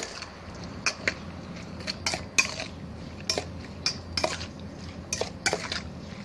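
Metal spoon stirring a wet salad in a stainless steel mixing bowl, knocking and scraping against the bowl in irregular clinks, about two a second.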